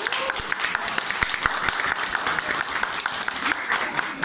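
Applause: a small audience clapping hands, many claps overlapping in a fast, continuous patter.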